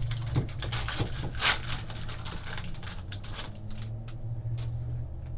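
Trading card pack being torn open and the cards handled: a run of scraping, rustling clicks, thickest in the first three seconds, over a steady low hum.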